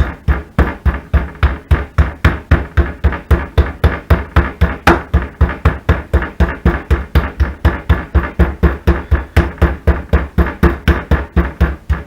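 Chicken breast being pounded thin: a steady run of heavy thuds, about four blows a second.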